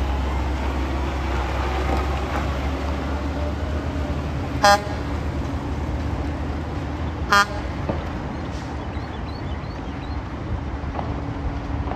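Diesel engines of Mack concrete mixer trucks running as they drive past and pull away, with two short horn toots about two and a half seconds apart near the middle.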